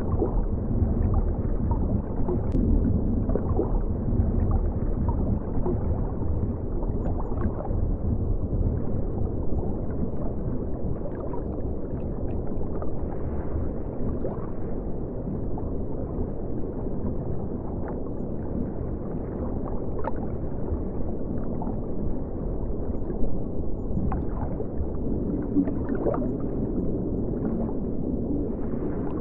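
River water flowing and gurgling, heard muffled and low through a camera set in the river, as a steady rushing with scattered small clicks and one brief louder knock about 23 seconds in.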